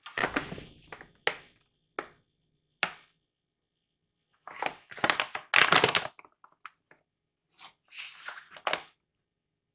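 Flax seeds from a metal measuring spoon spilling into a glass bowl, followed by three sharp clicks. Then a plastic pouch of chia seeds crinkles loudly as it is handled, with a second, shorter rustle near the end as the measuring spoon goes into it.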